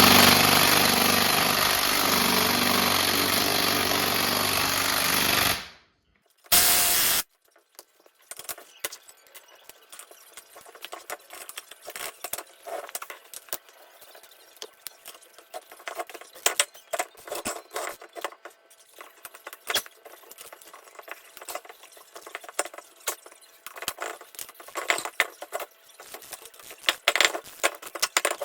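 A power tool run hard on the engine's head bolts for about six seconds, a loud steady noise that cuts off, then one short burst. After that come many light, irregular metal clicks and ticks of hand tools working on the bolts.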